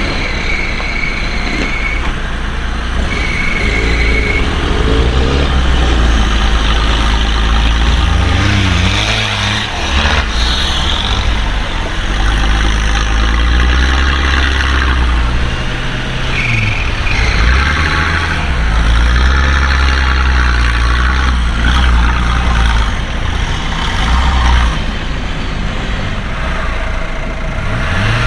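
Off-road 4x4's engine running under varying load, swelling and easing again and again as it drives.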